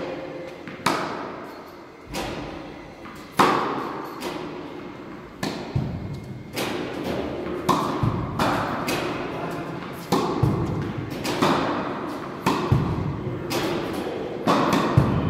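Tennis balls being struck with a racket and bouncing off the court, a string of sharp hits about one a second, each echoing in the large indoor hall.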